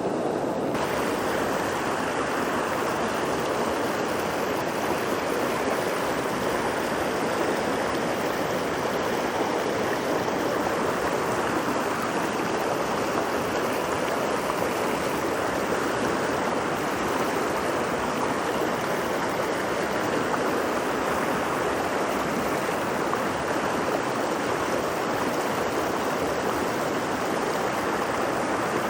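Steady rush of a steep mountain stream flowing over rocks and cascades. The sound gets fuller and brighter just under a second in, then holds even.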